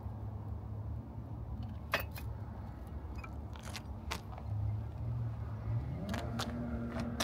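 Steady low rumble of road traffic. About six seconds in, a vehicle engine rises in pitch and then holds a steady hum. A few sharp clicks and taps are scattered through.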